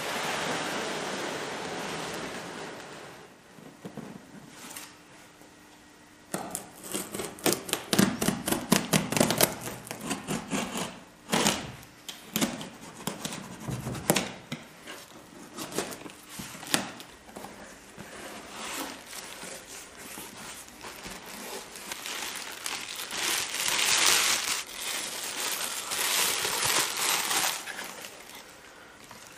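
Background music fades out in the first few seconds. Then a sealed cardboard shipping box is opened: a blade slits the packing tape and the flaps are handled, with a run of sharp knocks, scrapes and tearing. Near the end comes the crinkling of plastic bubble wrap around the parts inside.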